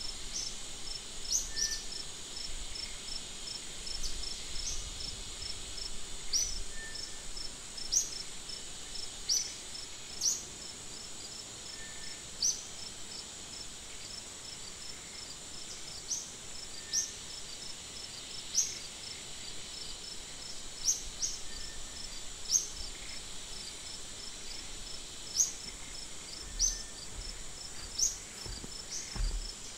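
Insects calling in a steady high drone, with dotted high trills and short, high, rising chirps at irregular intervals of a second or two.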